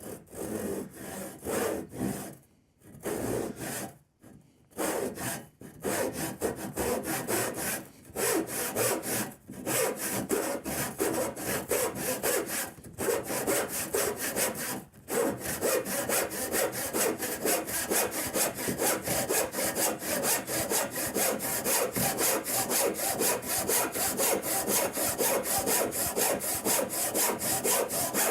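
Brand-new Veritas crosscut handsaw cutting through oak: a few short, halting strokes to start the kerf, then a fast, even rhythm of push-and-pull strokes, with brief pauses about 9, 13 and 15 seconds in.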